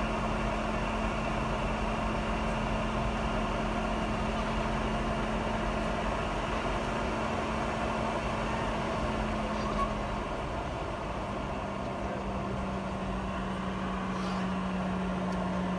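Cabin noise of a Boeing 717-200 airliner on the ground before takeoff: a steady drone with a low hum that drops slightly in pitch about ten seconds in.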